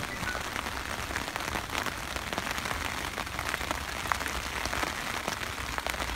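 Rain falling steadily: an even hiss with many separate drops ticking through it.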